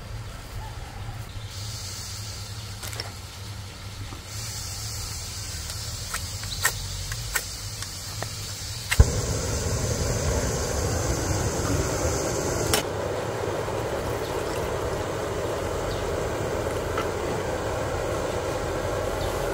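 Gas canister camp stove being lit: a hiss of gas, a couple of igniter clicks, then a sharp click about nine seconds in as the burner catches and burns with a steady rushing sound, over a low rumble.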